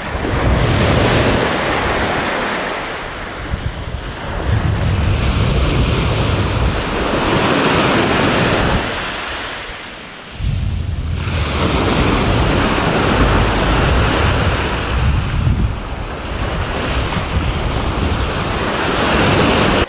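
Small waves breaking and washing up a sandy beach, with wind buffeting the microphone. The surf swells and ebbs in waves, dropping to a brief lull about ten seconds in before building again.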